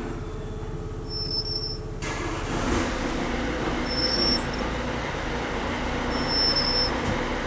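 BMW 116i front brake squealing three times, short high-pitched squeaks of pad on disc, over a steady low running noise. The mechanics put the squeal down to the brake pads.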